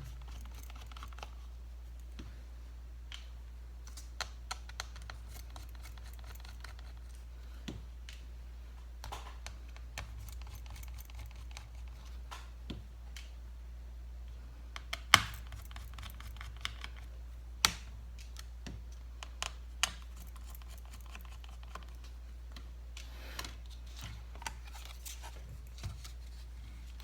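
Scattered small clicks and taps of a Torx T5 screwdriver on the tiny screws holding a MacBook Air's battery, and of the screws and tools being handled and set down. Two sharper clicks stand out about fifteen and eighteen seconds in, over a steady low hum.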